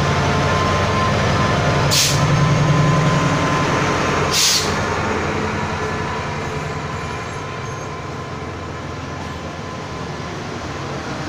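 Thai express train passing close by: the diesel-electric locomotive's engine drone, loudest in the first few seconds, gives way to the steady rolling of the passenger coaches. Two sharp clacks come about two and a half seconds apart, early on in the passing.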